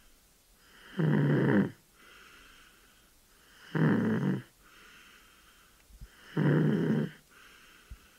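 Snoring: three loud, rough snores about two and a half to three seconds apart, with fainter breathing sounds between them.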